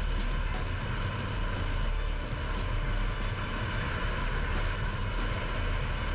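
Steady drone of a car driving along a road: tyre and engine noise with a deep rumble underneath.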